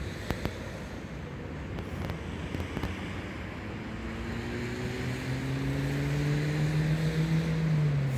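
HŽ series 6112 Končar electric multiple unit approaching, its traction motors giving a whine of several tones that rise slowly in pitch over a steady rush of rolling and wind noise. The sound grows louder, and the lowest tone drops in pitch near the end.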